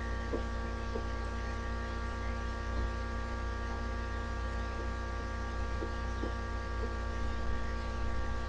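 Steady electrical mains hum with a stack of overtones. A few faint, light taps sound here and there.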